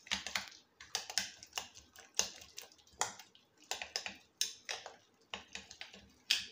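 A metal utensil clicking and scraping against a glass bowl, about three strokes a second, as it stirs a wet batter of grated potato, egg and flour.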